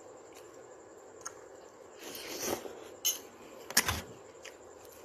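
Eating at a plate: a fork clicks a few times against a ceramic plate, the loudest click about four seconds in, with soft chewing noises between.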